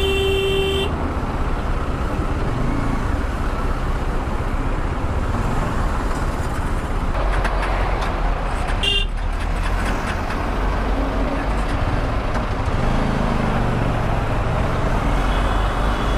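Riding noise from a Bajaj Dominar 400 motorcycle in heavy traffic: steady wind rush over the microphone with the engine underneath. Vehicle horns sound three times: one ends about a second in, a short toot comes about halfway, and a faint one comes near the end.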